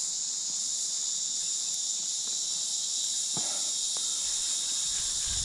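Steady high-pitched insect chorus, with a faint click about three and a half seconds in.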